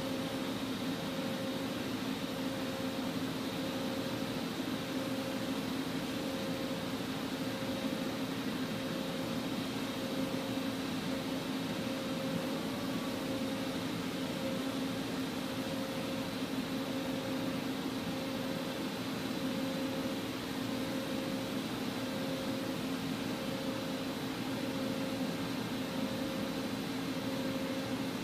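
Doosan Puma 480 XLM CNC lathe running idle with its chuck stopped: a steady mechanical hum with a high whine and a faint tone pulsing about once a second.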